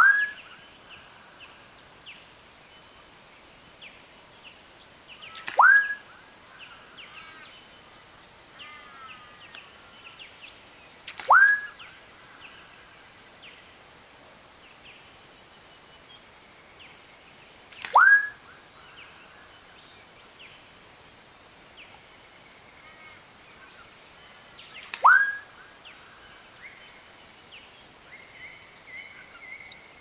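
Male musk duck displaying. Five times, about every six to seven seconds, it gives a sharp plonk followed by a whistle that sweeps quickly upward and holds briefly at the top. Faint chirps of small birds are heard between the calls.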